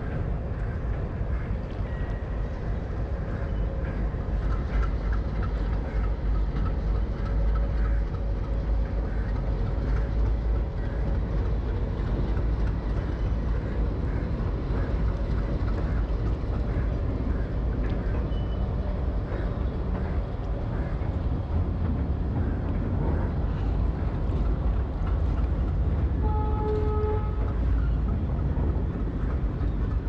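WDG-3A diesel locomotive's 16-cylinder ALCO engine running with a steady low rumble as it hauls a passenger train past, coaches rolling on the rails. A brief steady tone sounds about four seconds before the end.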